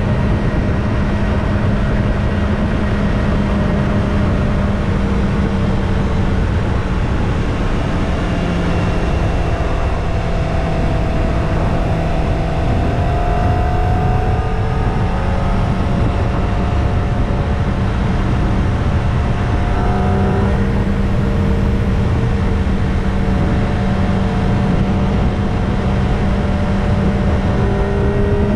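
Kawasaki ZX-25R's 249 cc inline-four engine on its stock exhaust, running steadily under way. Its pitch rises and falls gently in the middle, and a steady rush of noise lies under it throughout.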